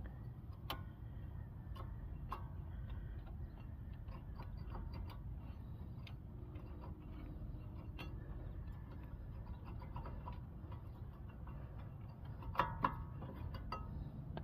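Scattered light metallic clicks and ticks of hand tools working on a car's front brake caliper to remove it, with two louder knocks near the end, over a steady low background hum.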